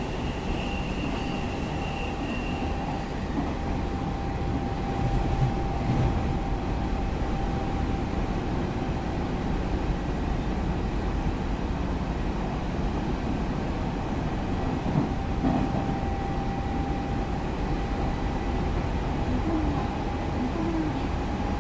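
Hanshin 8000 series electric train running, a steady rumble of wheels on rail. A steady whine sits above it throughout, and a higher whine fades out about three seconds in.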